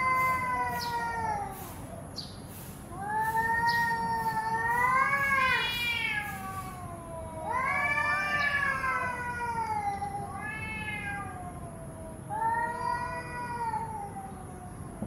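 Domestic cats yowling at each other in a standoff: about five long, drawn-out threat yowls that waver up and down in pitch, with short pauses between them, the kind of caterwauling that comes before a fight.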